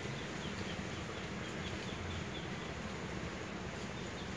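Steady outdoor background noise, with a faint run of short, high, slightly falling chirps, about four a second, through roughly the first half.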